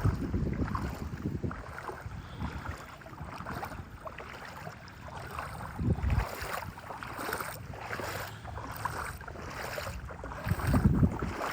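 Gusty wind buffeting the microphone, with loud surges about halfway through and near the end, over water sloshing in shallow floodwater.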